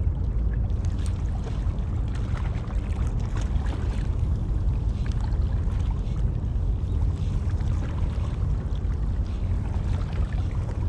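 Wind buffeting the microphone in a steady low rumble, with water lapping at the bank under it.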